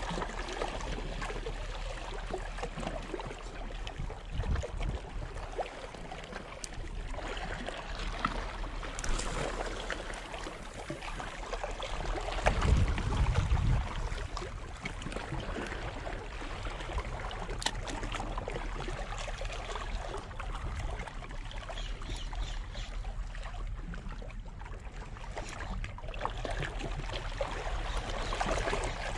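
Small waves washing against shoreline rocks, with wind on the microphone giving a steady hiss. About twelve seconds in, a louder low rumble lasts a couple of seconds.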